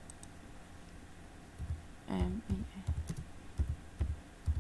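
Typing on a computer keyboard: a run of irregular, dull keystrokes, several a second, starting about a second and a half in.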